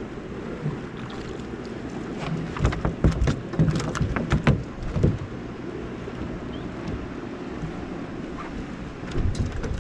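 Wind buffeting the microphone over water lapping against a small boat's hull, with a cluster of irregular knocks and thumps from about two and a half to five seconds in.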